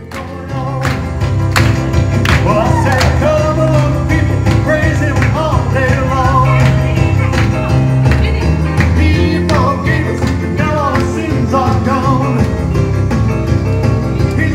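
Upbeat gospel song with a lead singing voice over a steady beat, played back from a phone through a PA mixer and speakers.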